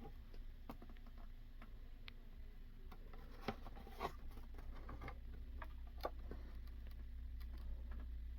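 Faint handling noise from Hot Wheels die-cast toy trucks being turned over in the hands: scattered small clicks, taps and light scrapes, a few sharper ones near the middle, over a steady low hum.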